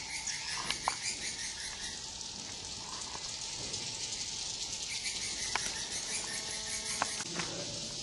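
Steady high-pitched chirring of night insects such as crickets, with a few sharp clicks.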